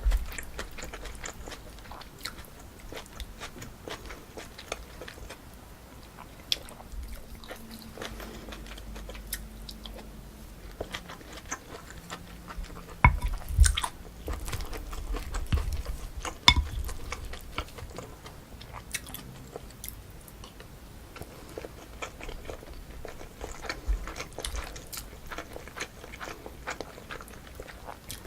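Close-miked mouth sounds of a person chewing and biting pork kimchi stew with rice: soft wet chewing with small clicks and crunches, louder around the middle.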